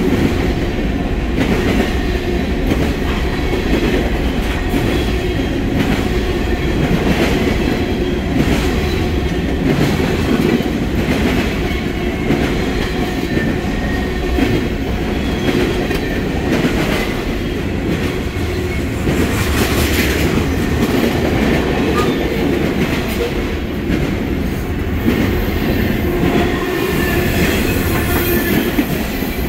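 Freight train cars (boxcars, covered hoppers and tank cars) rolling steadily past at close range: a continuous heavy rumble with the clickety-clack of wheelsets over rail joints and a faint high wheel squeal now and then.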